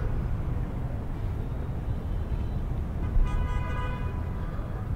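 Steady low rumble of city traffic. About three seconds in, a vehicle horn sounds once for about a second.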